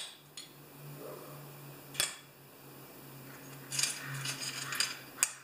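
Small steel screws clinking in a metal parts tray as a hand rummages through them: a sharp click about two seconds in and a run of clinks near the end.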